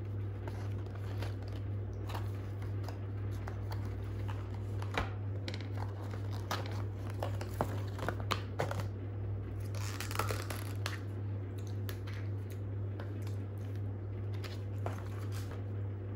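Paperboard takeaway boxes being opened and handled on a glass-topped table: cardboard rustling and creasing with scattered light taps, and a denser rustle about ten seconds in. A steady low hum runs underneath.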